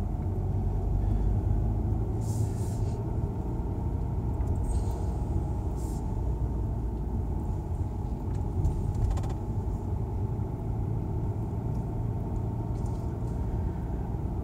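Steady low rumble of a car's engine and tyres on the road, heard from inside the cabin while driving. A few brief faint hisses come and go over it.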